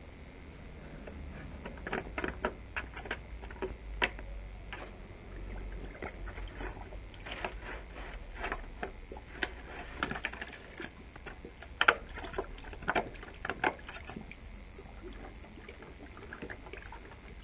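Cut-open plastic jug knocked, scraped and clattered by a pitbull puppy pawing and mouthing at it: irregular sharp plastic knocks and clicks, loudest about twelve and thirteen seconds in.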